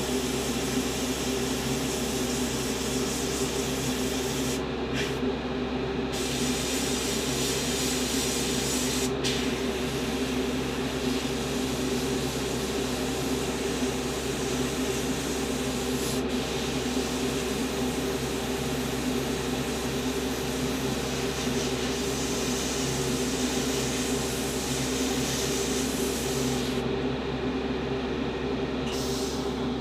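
Airbrush spraying paint, a steady hiss of air that breaks off briefly several times as the trigger is let go, over a steady low hum.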